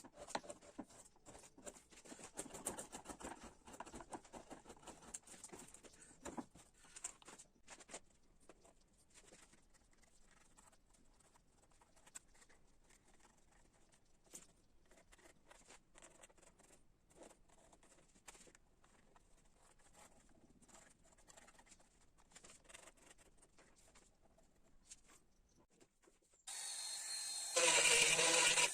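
Faint scattered taps and scrapes of hand-working wood, then near the end a power tool starts up and runs loudly with a steady whine.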